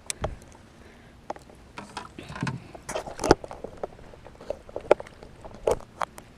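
Scattered knocks, clicks and rustles of handling gear on a plastic fishing kayak, sharpest about three seconds in.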